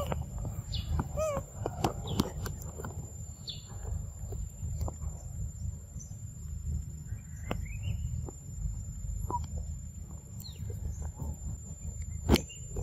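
Outdoor ambience: a low steady rumble with scattered short high chirps and a few squeaky calls that bend in pitch, mostly in the first second and a half. Several faint clicks, and one sharp click near the end.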